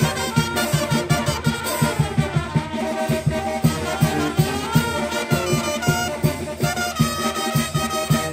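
Mexican wind band playing a chilena: several trumpets carry the melody together over a steady low beat.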